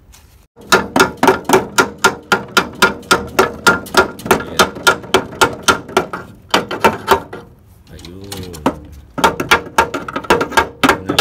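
Hammer tapping rapidly and evenly on the hub of a window-type air conditioner's fan blade to drive it off the motor shaft, about three to four sharp, ringing strikes a second. The tapping pauses about six seconds in and resumes near the end.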